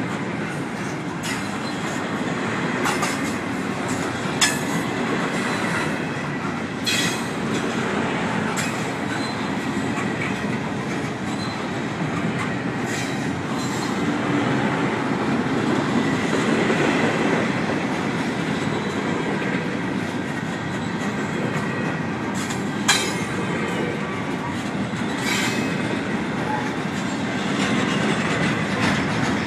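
Double-stack intermodal freight train's container well cars rolling past: a steady rumble of steel wheels on rail, with a few sharp clanks at irregular moments.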